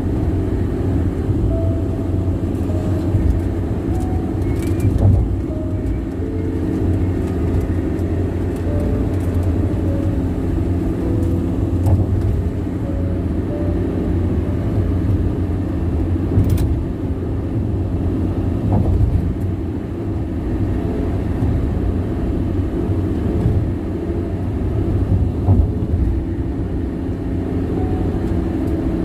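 Car tyres rolling on the road at highway speed: a steady low rumble and drone, which the owner questions as unusually loud tire noise.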